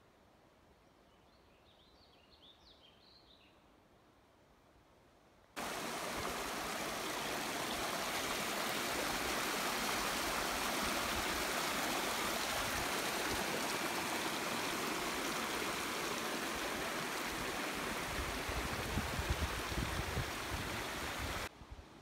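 Small mountain creek rushing and splashing over rocks, a loud, steady rush of water that starts abruptly about five seconds in and cuts off just before the end. Before it, near quiet with a few faint high chirps.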